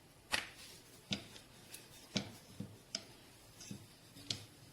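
Rolling pin tapping and clacking on the rolling board as a chapati is rolled out: about eight light, sharp taps at irregular intervals.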